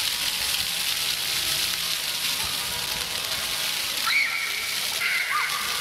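Steady hiss and splash of the ground-level fountain jets spraying onto wet paving, with children's brief high-pitched calls about four seconds in and again near the end.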